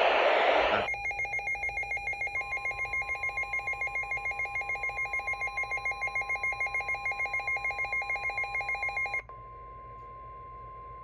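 Emergency alert tones received over radio. A rapidly pulsing, ringing alert tone runs for about eight seconds after a second of radio hiss. A steady single-pitch tone, the NOAA Weather Radio 1050 Hz warning alarm tone, joins about two seconds in and continues alone after the pulsing stops.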